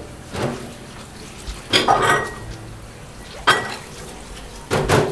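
Dishes and ceramic ramen bowls clattering and clinking against each other and a stainless steel sink as they are washed by hand. The clatter comes four times, some strikes ringing briefly.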